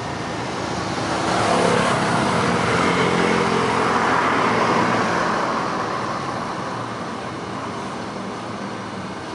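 Traffic noise: a road vehicle passes, swelling about a second in and fading away over the next several seconds.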